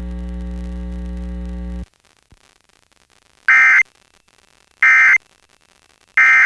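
Steady electrical hum under the end of the broadcast voice message, cutting off suddenly after about two seconds. After a short silence come the Emergency Alert System's end-of-message signal: three short, identical bursts of warbling SAME data tones, a little over a second apart, which close the alert.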